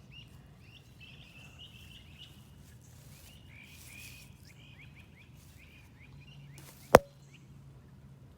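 A bird chirping repeatedly in short, high notes, several a second, over a faint low hum. One sharp click about seven seconds in is the loudest sound.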